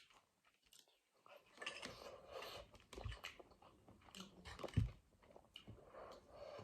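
Close-up chewing of thukpa noodle soup with vegetables: soft, wet mouth clicks and smacks, with a couple of soft thumps midway.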